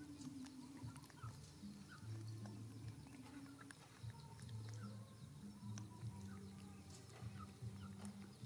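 Faint wet chewing and small smacking clicks of a baby macaque eating ripe papaya.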